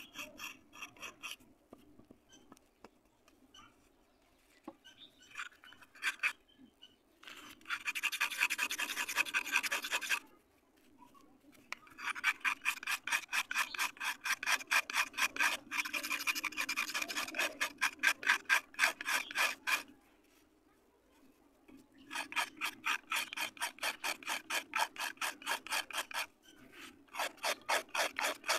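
A knife blade scraping a dried red clay ring, shaving off powder in rapid rasping strokes, about five a second. The strokes come in runs of several seconds with short pauses between, and there are only scattered light scrapes in the first few seconds.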